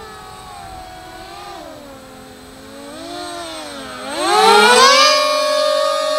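Three brushless motors and propellers of an electric RC Su-30 model whining together with an air-raid-siren wail. The pitch dips and rises with the throttle several times, then climbs steeply to full power about four seconds in and holds high.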